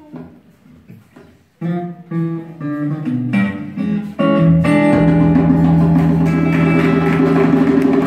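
A small acoustic band starting a song. After about a second and a half of quiet, an acoustic guitar picks out single notes of an intro. About four seconds in the full band comes in louder, with bass guitar under sustained guitar chords.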